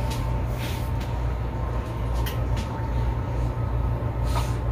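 Steady low background hum or rumble, with a few faint light clicks and rustles.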